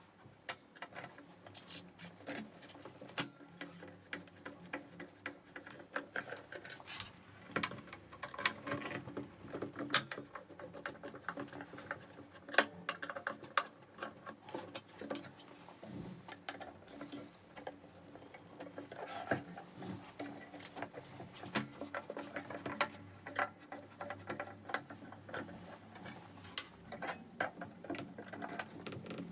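Irregular small clicks and taps: screws being undone and a plastic welder foot-pedal housing being handled as it is taken apart.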